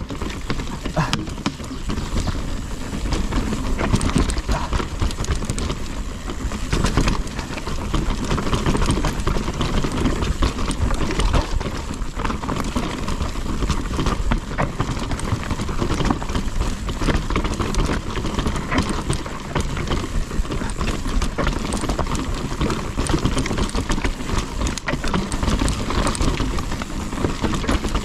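Nukeproof Mega 290 mountain bike riding down a rough downhill trail: tyres rolling over dirt and the bike rattling and clattering over the bumps, under a steady rush of noise.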